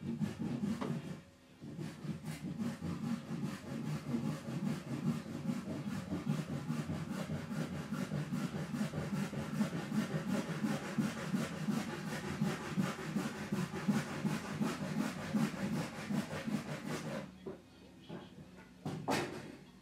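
Saw cutting through wood in a steady rhythm of quick strokes, which stops abruptly about three seconds before the end. A brief knock follows near the end.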